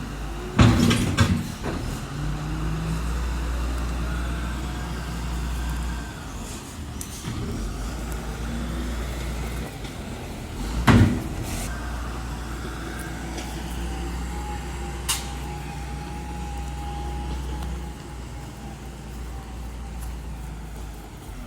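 Heavy vehicle or road machine engine running steadily at a low rumble, with a few loud knocks or bangs: a cluster about a second in, one about 11 s in, and a lighter click near 15 s.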